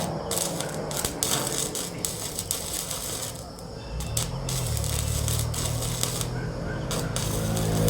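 Electric arc welding crackling in irregular spurts of sharp clicks. About halfway through a low steady hum comes in and grows louder toward the end.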